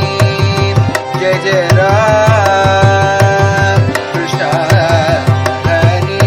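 Bhajan music in Kapi raga: a mridangam beat from a metronome app plays a steady rhythm under harmonium, while a voice holds and bends long ornamented notes.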